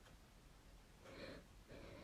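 A woman's faint breathing: two short breaths, one about a second in and one near the end.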